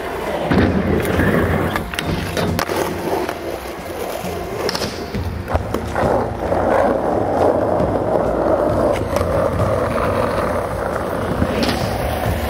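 Skateboard wheels rolling over concrete with a steady rumble. Sharp clacks from the board come often in the first half; after that the rolling noise is smoother and steadier.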